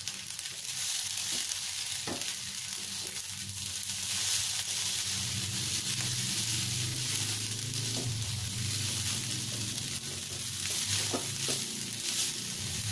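Rice vermicelli sizzling in an aluminium wok as it is stir-fried with chopped celery leaves, a spatula scraping through the noodles and knocking against the pan a few times.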